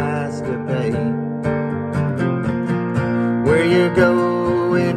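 Acoustic guitar strummed steadily, with a man's voice singing along over it, strongest in the second half.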